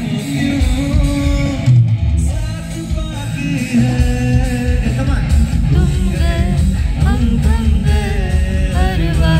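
A pop song playing loudly: a singer's voice over guitar and a heavy bass line.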